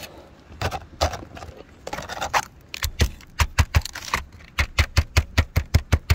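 Aluminum roof flashing being handled and worked: scattered knocks and scrapes, then from about three seconds in a fast, even run of sharp clicks, about five a second.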